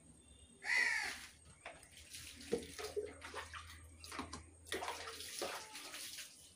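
Water splashing and pouring over hair during a shampoo hair wash, in uneven bursts, loudest about a second in and again near the end.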